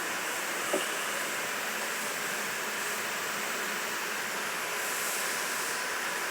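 Steady mechanical hiss with a faint hum, with one short click about three quarters of a second in.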